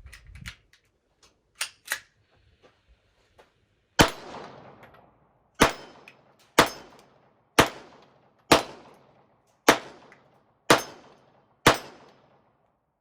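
Hi-Point 9mm pistol firing eight shots at roughly one a second, each a sharp crack with a short echoing tail. Two light clicks come a couple of seconds before the first shot.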